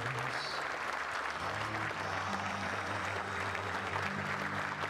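Audience applauding steadily, with music playing underneath in low held notes.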